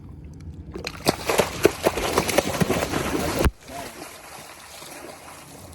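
Water splashing and sloshing as a large stingray is released over the side of a boat, for about two and a half seconds with many irregular splashes, then cutting off abruptly.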